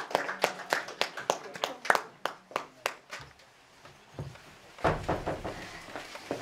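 Scattered applause from a small audience: separate hand claps at an uneven pace that thin out and stop after about three seconds. A low rumbling noise comes in near the end.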